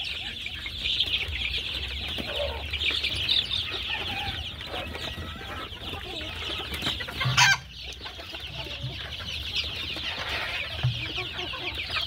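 A large brood of young desi chicks cheeping continuously, many short high peeps overlapping. One brief louder sound stands out about seven seconds in.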